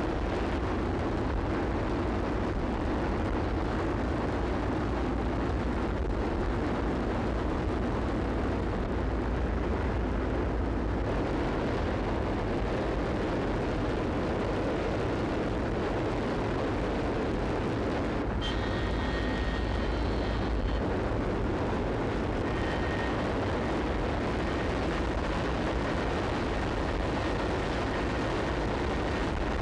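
Steady, loud engine noise of a military transport aircraft in flight, heard inside its cabin. Brief faint high tones show up about two-thirds of the way in.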